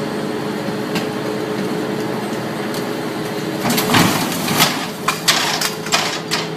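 A loaded dump truck is pulled over from its side and drops onto its wheels with a loud crash about four seconds in, followed by several sharp bangs and clanks as it settles. A steady engine hum runs underneath.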